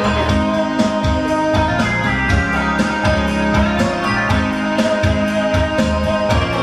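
Instrumental music: guitar over bass and a steady beat.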